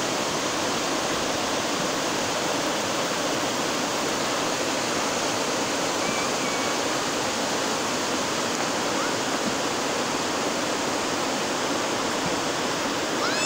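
Fast, shallow river rushing over rocks in rapids: a steady, unbroken wash of water noise.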